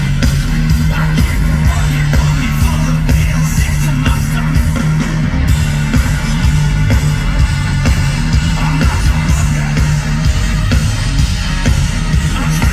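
Live heavy rock band playing loud over a PA system, recorded from the crowd: electric guitar, drums and vocals, with a heavy bass-laden low end.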